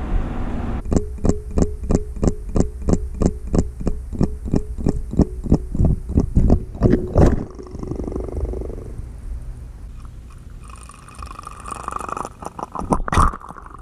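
Battery-powered swimming Nemo toy fishing lure heard underwater: its tail motor ticking in an even rhythm, about three pulses a second over a steady hum, until about seven seconds in. A few sharp knocks come near the end.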